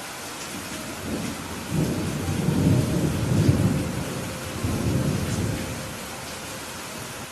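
Steady rain hiss with a roll of thunder that builds about a second in, rumbles loudest in the middle in two surges, and dies away near the end.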